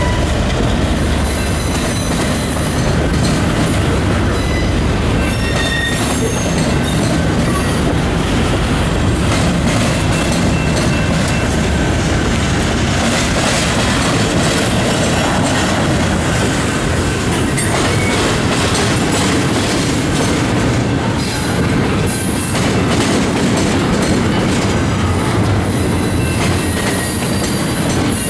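A train's cars rolling steadily past, wheels clicking over the rail joints, with brief high squeals from the wheels now and then.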